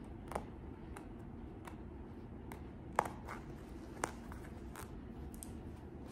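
A pointed hand tool picking leftover glitter heat-transfer vinyl out from between stitched applique on a satin jacket: faint scattered ticks and light rustles, the sharpest tick about three seconds in.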